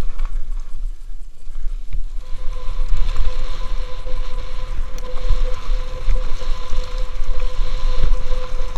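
Wind buffeting a helmet-mounted camera's microphone during a fast mountain-bike descent, with the bike knocking and rattling over a rough dirt trail. A steady faint high tone comes in about two seconds in.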